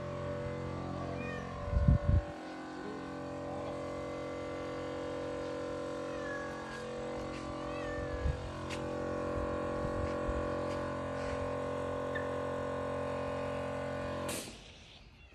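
A steady machine-like hum made of several held tones, with a brief loud low rumble about two seconds in and a few faint short chirps in the middle. The hum cuts off abruptly near the end.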